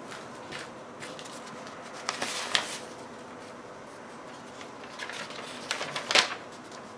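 Paper rustling as a printed sheet and mailing envelopes are handled, in short flurries about two seconds in and again near the end, the sharpest crackle about six seconds in.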